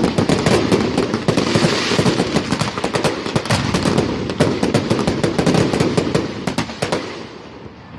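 Fireworks crackling: a rapid, dense run of small sharp bangs, like machine-gun fire, that thins out and fades about seven seconds in.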